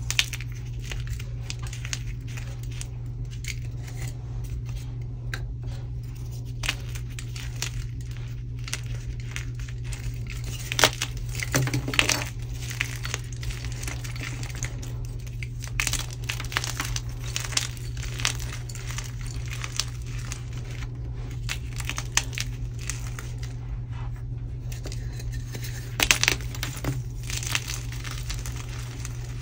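Bare hands crushing thin slabs of plain white gym chalk, crunching and crumbling them into chunks and powder, with bursts of louder snapping about eleven seconds in and again near the end.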